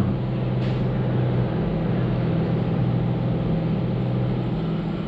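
Steady low mechanical drone with an even hum, with one faint click about half a second in.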